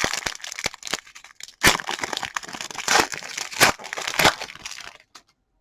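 Plastic trading-card pack wrapper crinkling and tearing as it is opened, in irregular rustles that stop about five seconds in.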